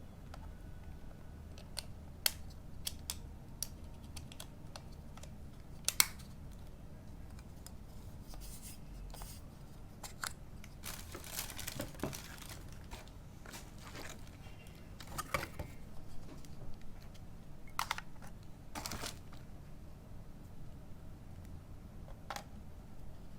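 Unpacking sounds: packaging crinkling and rustling, with scattered sharp clicks and taps.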